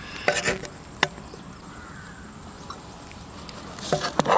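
A few sharp clinks and knocks of utensils being handled, some with a brief ring: a cluster at the start, a single knock about a second in, and another cluster near the end.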